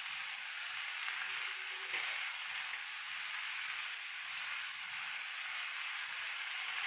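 Rice and vegetables sizzling steadily in a hot kadhai, with a light knock about two seconds in.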